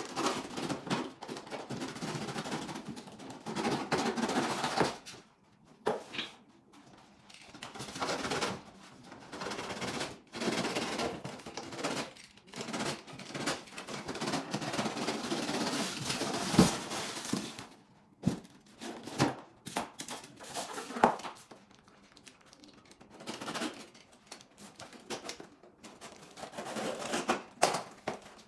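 A knife cutting along the seams of a large cardboard shipping carton, in stop-start scrapes, then cardboard and packing being handled and pulled apart, with a few sharp knocks.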